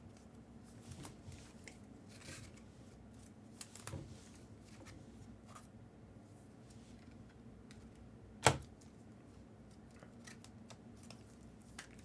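Faint handling of trading-card packs and cards: light clicks and rustles, with one sharp tap about eight and a half seconds in.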